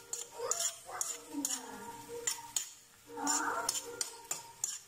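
A metal spoon stirring snails in their shells in a metal wok: sharp clinks and scrapes of spoon on pan and shells clattering, roughly twice a second at an uneven pace. A brief pitched sound rises in the background about three seconds in.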